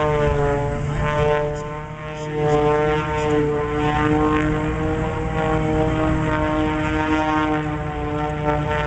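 Propeller-driven aerobatic airplane's engine running at high power, a steady pitched sound whose pitch wavers slowly up and down as the plane manoeuvres. It dips briefly about two seconds in.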